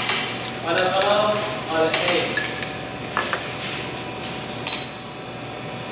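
A utensil clinking against a metal bowl of melted chocolate, a few separate sharp clinks spread over several seconds. A voice mumbles briefly in the first two seconds.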